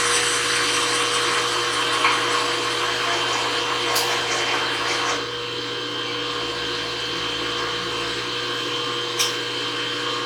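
A motor whirs steadily for about five seconds and then stops abruptly, over a steady electrical hum. A couple of sharp clicks come, one mid-way through and one near the end.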